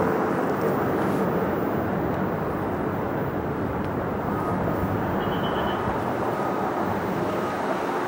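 Airbus A330 jet engines at takeoff power: a steady distant roar as the airliner rolls down the runway and lifts off, easing slightly in level.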